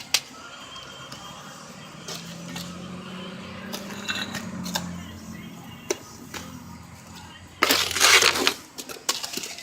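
Stone veneer pieces being handled and set: scattered sharp clicks and knocks of stone, with a loud scrape lasting about a second around eight seconds in.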